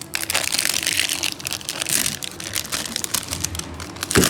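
Plastic wrapping on a L.O.L. Surprise toy being crumpled and torn open, crinkling continuously, with a sharp knock near the end.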